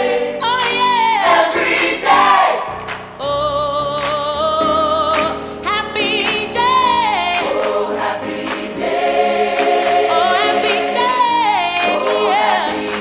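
Music with voices singing, choir-like, in long held notes and gliding melodic lines over sustained chords.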